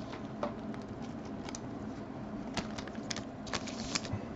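Faint scattered clicks and light rustles of trading cards and foil packaging being handled, over a low steady hum.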